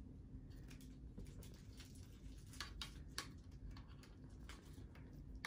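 Faint clicks and rustles of a ring light's power cable being unwrapped and handled, with a few sharper clicks about two and a half to three seconds in, over a low steady hum.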